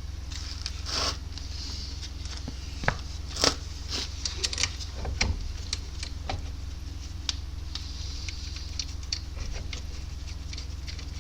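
Brake caliper being fitted back in place by hand: scattered metal clicks, light knocks and short scrapes, over a steady low hum.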